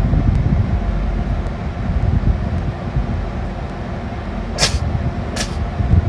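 A steady low rumble, with short sharp hissing sounds about a second apart starting near the end.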